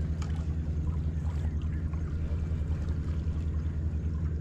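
Outboard motor idling steadily, a low, fast, even throb.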